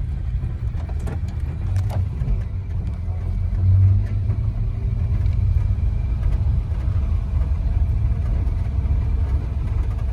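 1946 Hudson Commodore Eight's flathead eight-cylinder engine running under way, a steady low rumble with road noise as the car cruises at about 40 mph, and a brief swell about four seconds in.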